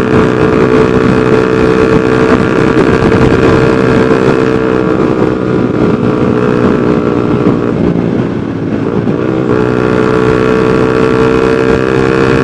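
Honda New CB150R's single-cylinder engine running through a 3Tech Spartan GP racing exhaust while riding at a steady engine speed. About eight seconds in it eases off and wavers for a second or so, then comes back to the steady note.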